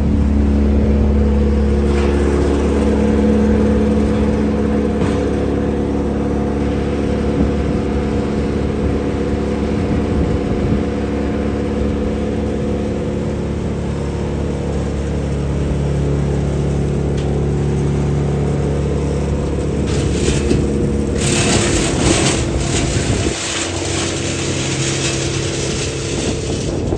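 Wood chipper's engine running steadily with a low hum. About two-thirds of the way through, a loud rushing, crackling noise joins for a few seconds, then lingers more faintly.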